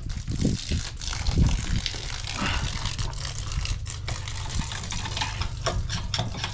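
Water gushing and splashing out of an RV water heater tank as it is flushed with mains pressure, with irregular splatters and low thumps.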